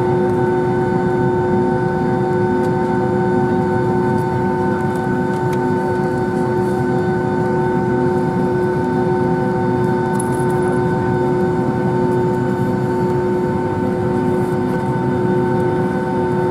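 Steady cabin noise inside a Boeing 757-200 on the ground: the jet engines running at low power for taxi, a constant rumble with several steady whining tones over it.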